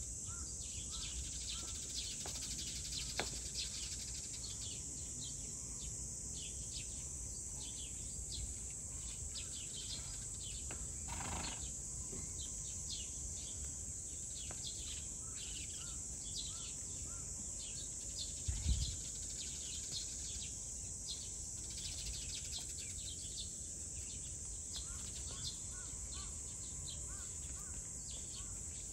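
Outdoor ambience: a steady high-pitched insect drone with many short bird chirps over it, and one low thump about nineteen seconds in.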